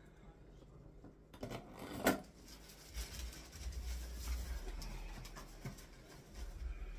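Rustling and scraping handling noises with scattered clicks, including one sharp click about two seconds in.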